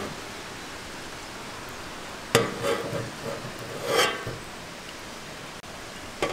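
Metal spatula clinking and scraping against a metal tray as egg-roll pieces are lifted and set down: a sharp clink just past two seconds, more clatter around four seconds, and a short click near the end, over a steady hiss.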